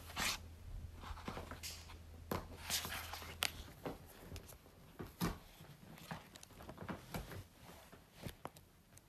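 Pages of a paperback book being flipped and handled by hand: irregular paper rustles and flicks.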